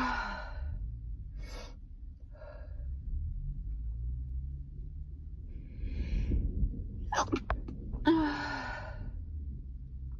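A person sneezing: a sneeze tails off at the start, followed by short breaths and a drawn-in gasp about six seconds in. A couple of quick stifled sneezes follow, then another full voiced sneeze a little after eight seconds.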